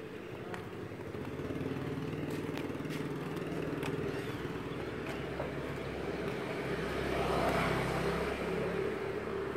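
Street traffic: small motorbike and vehicle engines running, with the engine noise swelling to its loudest about seven to eight seconds in as a vehicle passes close.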